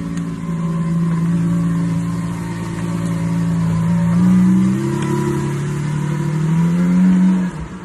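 A supercar's engine running with a steady note, stepping up in pitch a little past halfway and rising again near the end before cutting off sharply.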